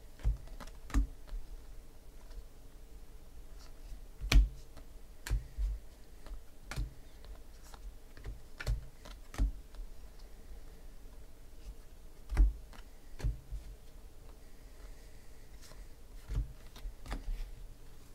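A stack of stiff chrome Panini Prizm trading cards being flipped through and squared in the hands, making irregular sharp clicks and taps, two of them louder than the rest.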